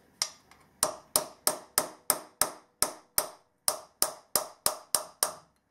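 About fifteen sharp hammer taps on metal, roughly three a second, each with a short ring: a part of the electric motor being tapped into place during reassembly.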